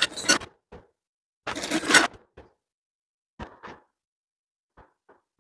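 Stainless steel tubes and blue plastic joints of a clothes drying stand clattering and scraping as a frame is lifted and handled, in a few short bursts, followed by faint clicks near the end.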